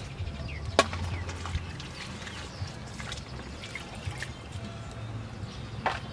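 Water splashing and dripping as hands rinse cut green vegetable stems in a steel bowl, with small ticks throughout and two sharp knocks, one about a second in and one near the end.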